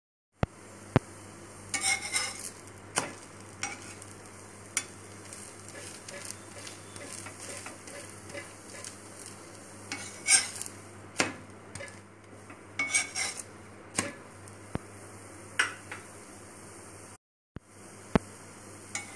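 Egg-dipped bread frying in ghee on a cast-iron tawa with a steady low sizzle, while a steel spatula scrapes, taps and presses on the pan again and again. The sound cuts out for a moment twice.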